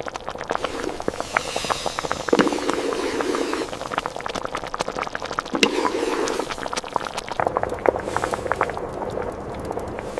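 Vegetables and spices sizzling in a cooking pot as they are stirred, with a steady hiss and many small crackles and pops.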